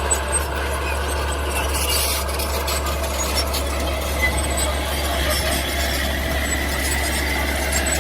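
Mini bulldozer working: a steady machine drone with continuous metallic squealing and rubbing.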